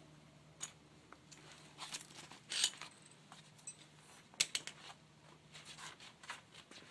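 Handling noise: scattered light clicks and small metallic clinks, the sharpest about two and a half and four and a half seconds in, over a faint steady hum that stops near the end.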